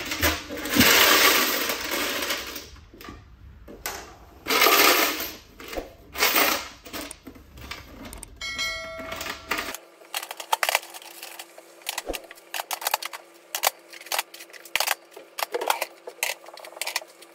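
Handling noise from servicing a vending machine: coins clinking and rattling in the machine's removed plastic coin box, with clatter and knocks from the cans and fittings. The second half is a quick run of sharp clicks and knocks.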